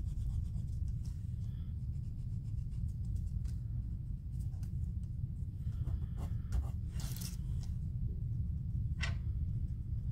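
Steady low hum under faint scratching and rubbing from paper and craft tools being handled, with a brief rustle about seven seconds in and a click about nine seconds in.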